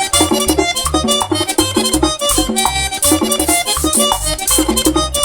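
Merengue típico band playing an instrumental passage, with the accordion carrying the melody over pulsing bass and a fast, even percussion beat.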